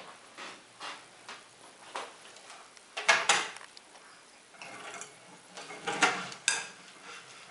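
A plastic toy tractor being pushed and knocked across a hardwood floor by a baby's hands: a string of irregular knocks and clatters, loudest in a cluster about three seconds in and again around six seconds.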